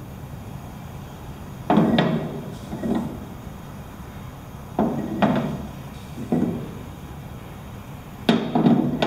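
Knocks and clunks of a small jar being handled against a hollow wooden bench, in short clusters every one to three seconds.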